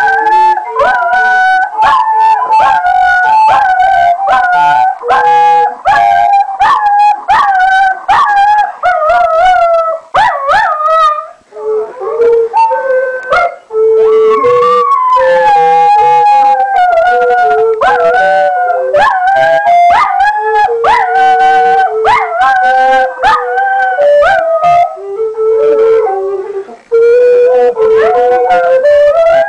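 Wooden recorder playing a tune in quick stepped notes while dogs howl along to it, their wavering howls sliding under and between the notes.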